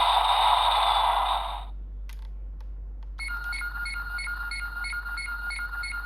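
Electronic sound effects from a DX GUTS Sparklence transformation toy's small speaker: a loud hiss that cuts off about 1.7 seconds in, a faint click, then a steady standby tone with a beeping pulse about three times a second.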